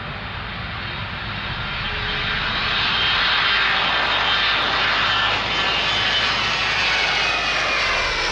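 Jet engines of a four-engine Boeing C-135-family jet on take-off and flyover. The roar swells about two seconds in, and a high engine whine falls in pitch as the aircraft passes.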